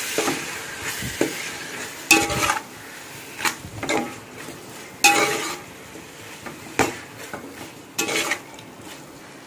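A metal ladle stirring and scraping chicken and masala around a metal pot as the chicken is sautéed. The chicken sizzles lightly, and the ladle scrapes and clinks against the pot every second or so.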